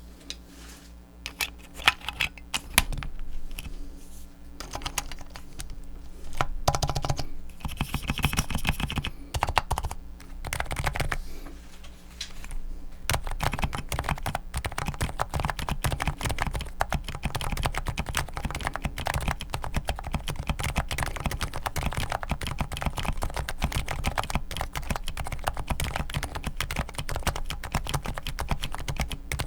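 Typing on a gasket-mounted Topre electrostatic capacitive keyboard (the Unrealforce): scattered keystrokes at first, then fast, continuous typing from just before halfway through.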